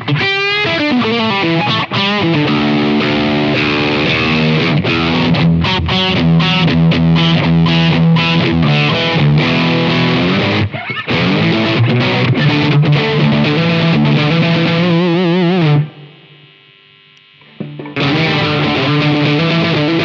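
Telecaster-style electric guitar played through a DSM Humboldt Simplifier MK2 preamp, modelling a Fender Bassman preamp into a Vox power amp: chords and single notes ring on. The playing stops about 16 seconds in and picks up again about two seconds later.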